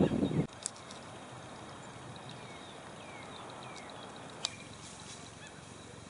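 Outdoor ambience: a steady hiss with several short, falling bird chirps and two sharp clicks. It opens with a brief low rush that cuts off abruptly about half a second in.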